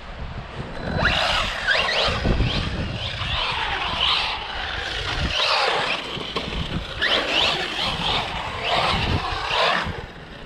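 Electric RC car's motor whining up and down in repeated bursts of throttle, with its tyres scrabbling on wet concrete.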